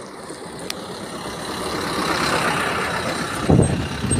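A bus's engine running as the bus pulls in, growing louder over the first few seconds, with a heavier low rumble near the end.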